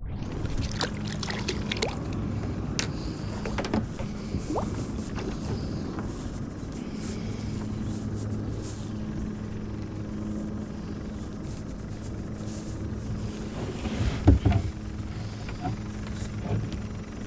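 Handling noise of fishing gear in a plastic kayak while a rope fish stringer is tied off: scattered clicks and knocks against the hull, the loudest cluster about fourteen seconds in, over a steady low hum.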